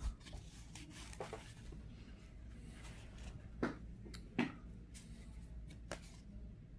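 Stiff cardboard baseball cards handled in the fingers, with light rustling and a few soft clicks as a 1984 Donruss card is turned over.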